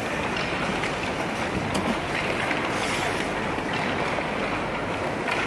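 Steady noisy din of a busy ice rink during a skating drill: skate blades scraping the ice against the general hubbub of the surrounding hall, with a single click about two seconds in.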